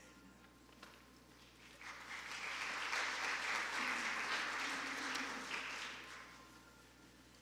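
A congregation applauding: clapping swells about two seconds in, holds briefly, then dies away by about six seconds.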